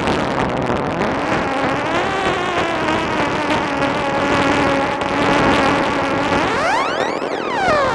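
Novation Bass Station 2 analogue synthesizer playing a noisy, droning texture through a tape-echo delay, its envelope retriggering in a loop. Several pitched tones glide slowly over a hiss, and near the end a sweep rises steeply and falls back down.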